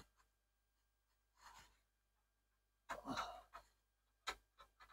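Mostly near silence: a faint breath, then a louder exhale about three seconds in, and a sharp click a little after four seconds, followed by a few faint ticks.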